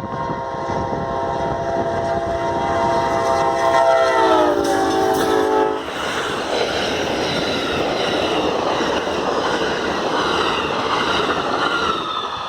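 Amtrak train's air horn blowing a loud multi-note chord at close range, the chord dropping in pitch a little past four seconds in as the locomotive passes, then cutting off about halfway through. The train then rushes by with heavy wheel and rail noise.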